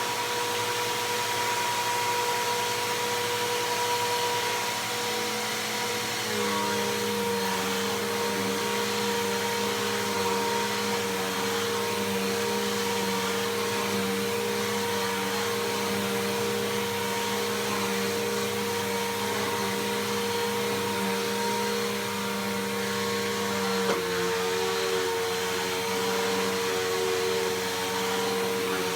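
Bissell PowerForce Helix Turbo upright vacuum cleaner running steadily while vacuuming. Its motor whine steps slightly in pitch about six seconds in and again near the end.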